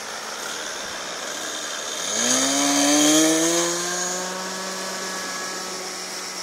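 Tiger 40 radio-controlled model plane's OS 61 nitro engine opening up to full throttle for takeoff: about two seconds in its whine rises quickly in pitch, levels off to a steady high note and fades as the plane climbs away. A steady background hiss runs underneath.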